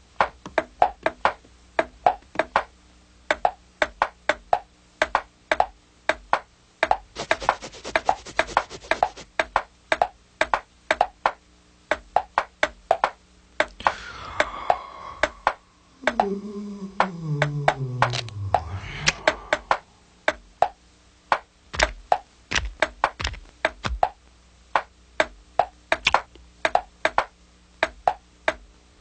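Cartoon sound effects: a long run of sharp knocks and clacks, a few a second, with a falling, groan-like glide a little past halfway.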